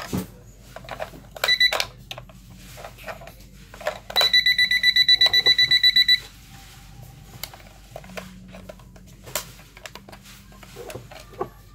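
JP9901 digital alarm clock beeping: a short burst of fast high beeps, then about two seconds of rapid beeps at roughly eight a second. Plastic clicks from handling the clock and its battery compartment come between them.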